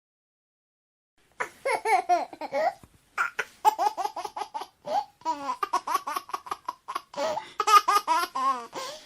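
A baby laughing in quick, repeated bursts of giggles with pitch rising and falling, starting about a second and a half in after a short silence.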